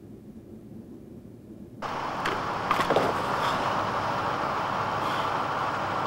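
Steady machinery noise of a construction site that cuts in abruptly about two seconds in, with a few short knocks and clatters soon after; before that only a faint low rumble.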